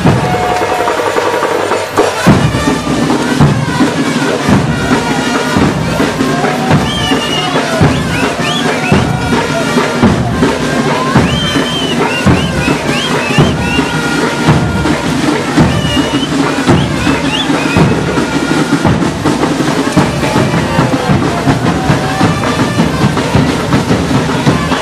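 Loud carnival dance music driven by drums, with a steady bass drum beat. High sliding tones come in over it in the middle.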